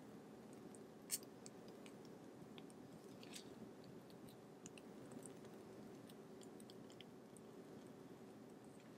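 Faint squishing of airy ladyfinger batter pressed out of a piping bag through a metal nozzle onto a baking sheet, with scattered small clicks and one sharper click about a second in.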